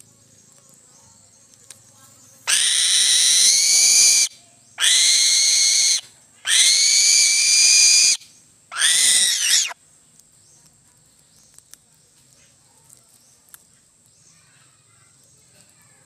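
An eagle gives four loud, high-pitched screaming calls in a row, each a second or more long with short gaps between, while hunched over the fish it is eating.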